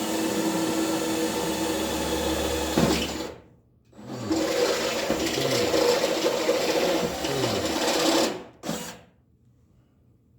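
Power drill with a step drill bit cutting a hole through the toaster oven's sheet-metal shell, in two runs of about three and four seconds with a short pause between, then a brief blip. The bit is being taken out to its fourth step.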